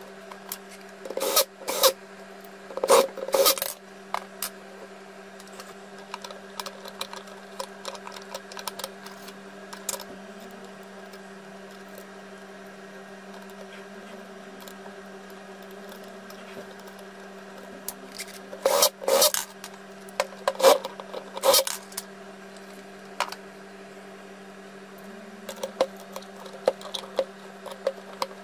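A Makita 1902 electric planer being handled and fitted together by hand: short clusters of clicks and knocks about a second and three seconds in, again around 19 to 22 seconds, and lighter ticks near the end, over a steady low hum.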